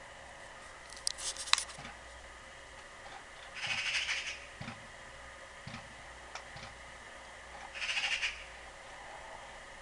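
A bird gives two short, harsh calls, about four seconds apart, with a cluster of sharp clicks about a second in.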